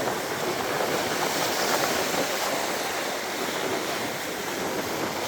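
Ocean surf breaking steadily on the shore, with wind buffeting the microphone.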